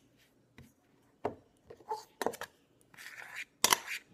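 A fork stirring dough in a stainless steel bowl: scattered clinks and scrapes of metal on metal, starting about a second in, the sharpest pair of clinks near the end.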